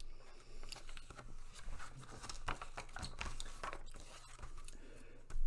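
Paper pages of a build magazine being handled and turned: irregular rustling with small clicks and crinkles.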